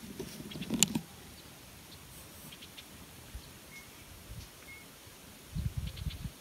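Camera handling noise as the camera is panned: a cluster of rumble and knocks close to the microphone about a second in, scattered faint clicks, and low rumbling knocks again near the end. Two short high peeps come around the middle.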